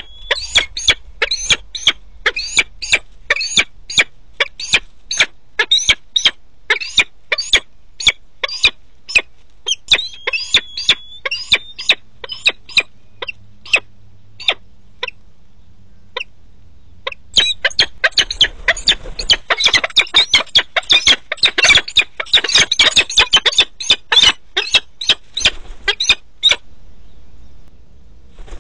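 Peregrine falcon calling at the nest during a food delivery: a run of short, sharp, repeated calls about two a second, a pause of a few seconds, then a faster, more excited series that stops suddenly.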